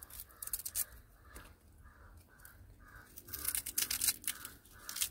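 Small knife cutting and scraping the skin off a raw saffron yam held in the hand, in short strokes that are busiest about three and a half seconds in. A bird calls in short repeated notes in the background.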